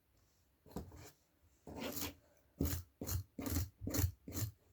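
A wide-toothed comb being pulled through a doll's wet, tangled synthetic hair in short strokes that scrape and rasp. The strokes quicken to about two or three a second in the second half.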